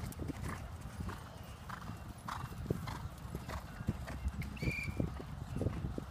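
Hoofbeats of several horses trotting and cantering on soft dirt footing: an irregular run of dull clip-clop thuds. A short high squeak sounds about two-thirds of the way through.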